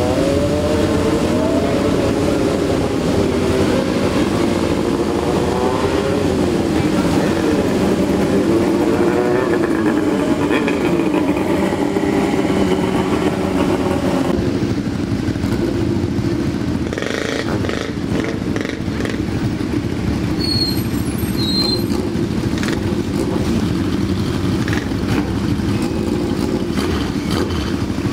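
Several classic Japanese four-cylinder motorcycles running with their exhausts close by. Engine speed rises and falls with throttle blips for about the first half, then settles to a steadier idle.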